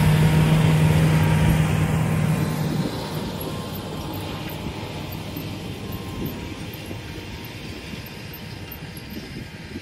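Large John Deere tractor's diesel engine pulling a disc plow past, a steady engine hum that drops away about three seconds in and keeps fading as the tractor moves off.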